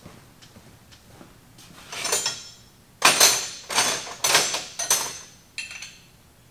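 Metal hand tools clanking and rattling as someone rummages through them for a wrench: a clatter about two seconds in, then a run of four loud clanks with bright metallic ringing, and a smaller one near the end.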